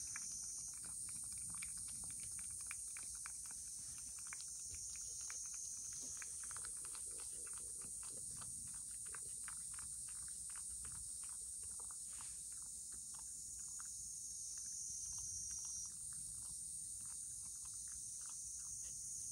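A cat licking a Churu lickable treat from a bowl: quick wet tongue clicks, about three a second, kept up without a break, over a steady high hiss.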